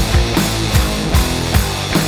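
Rock music with a steady drum beat.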